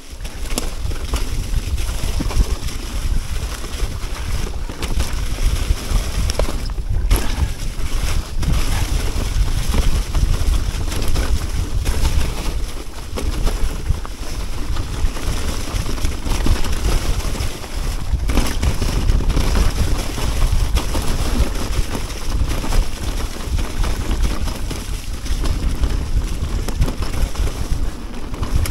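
Mountain bike riding down a dirt trail covered in fallen leaves: wind buffeting the microphone over tyres rolling on leaves and dirt, with the bike rattling and knocking over bumps.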